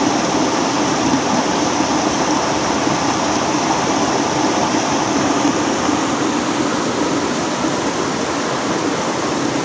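Creek water running over rocks: a steady rushing with no breaks.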